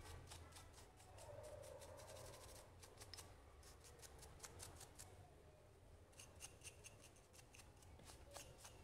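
Faint, quick scrubbing strokes of a small brush on a revolver's steel cylinder axle, wet with solvent. The strokes come in two spells with a lull in the middle.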